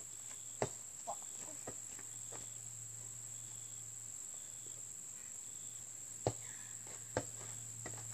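Basketball impacts: a sharp knock about half a second in as the shot comes down, then two more bounces near the end. Under them runs a steady high-pitched insect chorus.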